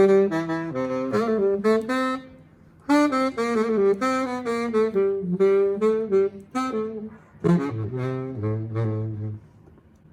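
Solo saxophone playing a slow melody in phrases of separate notes, with a short breath pause about two seconds in, ending on a long low note about nine seconds in.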